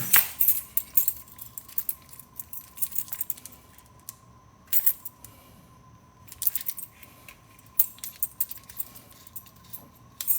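Keys jangling with small scattered clicks and taps as a car key fob and keys are handled and worked on, over a faint steady high tone.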